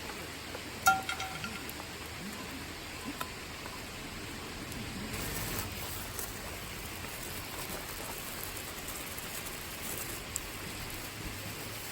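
Steady hiss throughout, with one sharp metallic clink that rings briefly about a second in.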